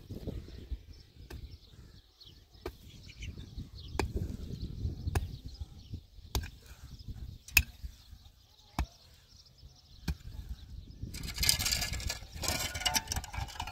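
Pickaxe striking hard, stony soil at a steady pace, about one blow every second and a quarter. Near the end a shovel scrapes through loose dirt and gravel.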